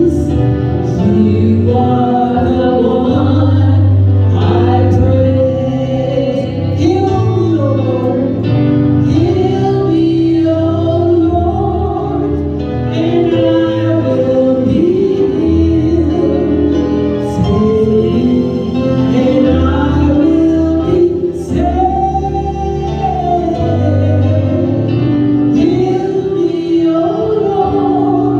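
Gospel song: voices singing a melody over instrumental backing with a steady bass.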